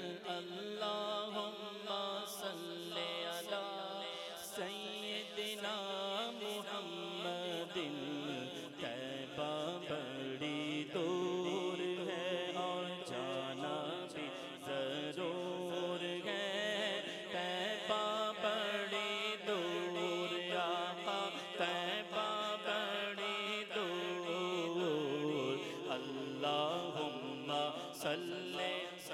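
A man's voice chanting a naat, an Urdu devotional song in praise of the Prophet, into a microphone in long melodic phrases that glide up and down with few breaks.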